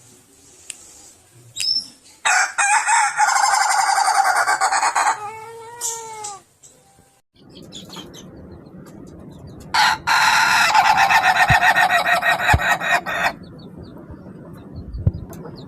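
Ayam ketawa (laughing rooster) crowing twice: each crow is a long run of rapid stuttering notes, the first starting about two seconds in and ending in a few drawn-out falling notes, the second about ten seconds in.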